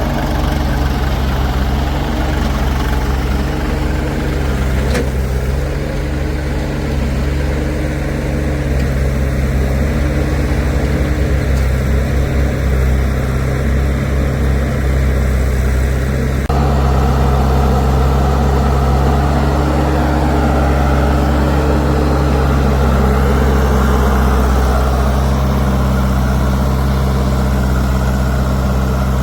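Diesel engines of a backhoe loader and tractors running steadily. About halfway through the sound changes abruptly and becomes slightly louder.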